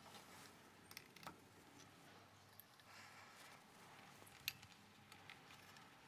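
Near silence with faint handling clicks as a cork is seated in a glass bottle neck and a wire cage is fitted over it, with one sharper click about four and a half seconds in.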